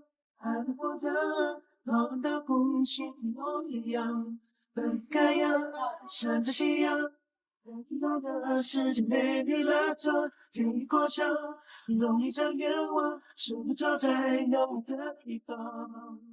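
A woman's voice singing with no instruments heard, phrase after phrase with short pauses, the longest about seven seconds in.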